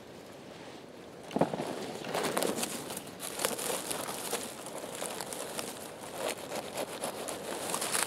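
Dry pine needles and twigs crackling and rustling under a hand working through the forest-floor litter to pick chanterelles, beginning with a sharp crackle about a second and a half in and then continuing in irregular bursts.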